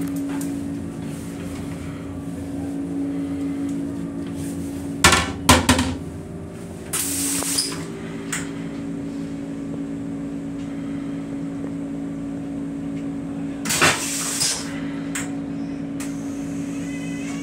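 A steady hum from the railcar's equipment fills the small stainless-steel toilet compartment. About five seconds in come a few loud clunks as the toilet lid is raised, then a short hiss. Near fourteen seconds there is another knock with a hiss.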